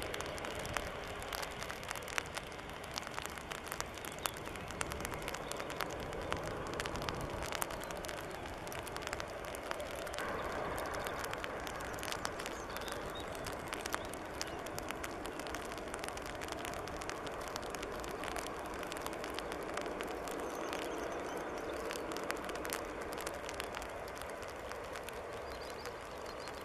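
Airbus A350-900's Rolls-Royce Trent XWB engines heard at a distance as the airliner slows on the runway after landing, a steady rushing jet noise, with many small crackles over it.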